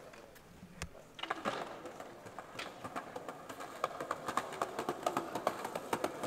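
Skateboard wheels rolling over paving-slab joints, giving a regular clacking of short clicks that starts about a second in and reaches about four a second.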